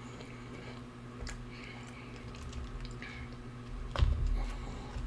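Quiet eating noises from a man chewing fast food into a close microphone, over a steady low hum, with one louder knock and thump about four seconds in.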